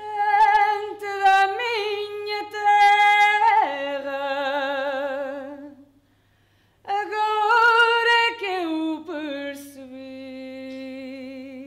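A woman singing unaccompanied in long held notes with a wide vibrato. She sings two phrases with a brief break about six seconds in, and the second ends on a long sustained note.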